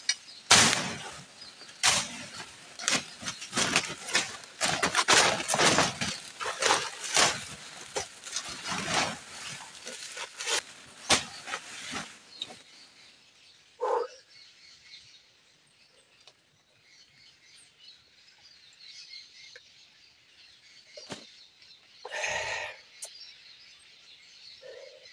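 A foice (brush hook) slashing through weeds and old banana plants, with rapid, irregular chops and rustling. The cutting stops about twelve seconds in, leaving faint bird calls and a single rustle near the end.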